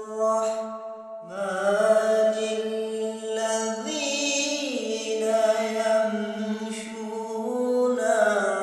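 Quran recitation: one reciter's voice chanting Arabic verses in long, melodic held notes, with a short breath pause about a second in.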